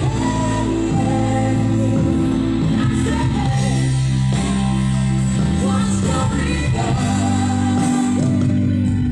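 A song playing: a singing voice over steady held bass notes and instruments.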